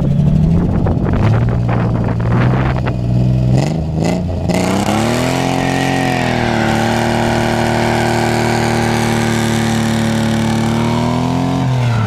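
Nissan 300ZX's V6 engine revving. The revs rise and fall for the first few seconds, climb about four seconds in, and are held high and steady for around five seconds before dropping off near the end.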